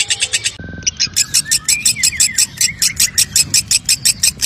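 Fischer's lovebird singing a long 'ngekek' chattering trill, the 'konslet' style: fast, dry, high notes at about seven a second with short gaps. The trill is broken briefly just under a second in by a short steady tone, then carries on.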